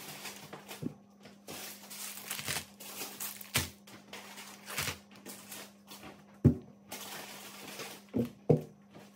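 Plastic snack wrappers and packets crinkling as goods are unpacked, with about six sharp knocks as bottles and cans are set down on a table. A faint steady low hum runs underneath.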